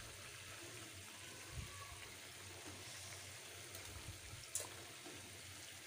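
Chicken pieces deep-frying in hot oil, a faint steady sizzle, with a light click near the end.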